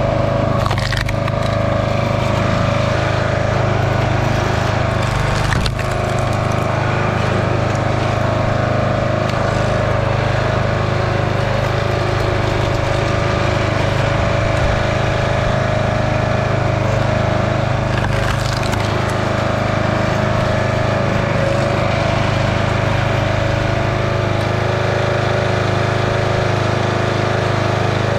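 Log splitter's small gas engine running steadily, with a few brief sharp cracks as wood splits.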